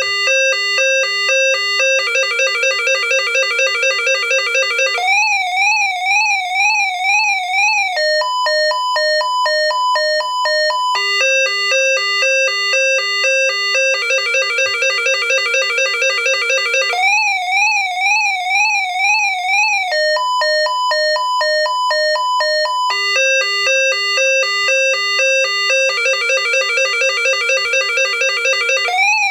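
Electronic alarm tones cycling through three patterns, each lasting about three seconds: a pulsing two-note beep, a fast warbling wail, then a higher pulsing two-note beep, the sequence repeating about every nine seconds.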